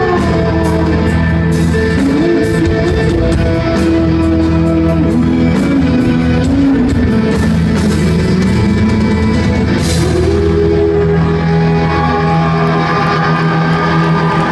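Live rock band playing loudly: guitars holding long sustained chords over bass, drum kit and cymbal hits.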